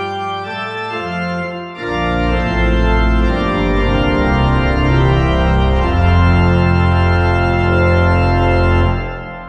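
Organ playing held chords; about two seconds in it grows louder as deep bass notes come in, and a final chord is held and dies away near the end.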